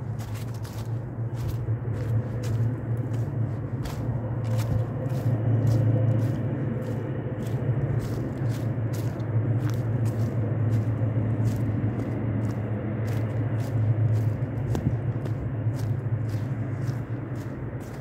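Footsteps crunching through dry fallen leaves on a forest trail, about two steps a second, over a steady low rumble.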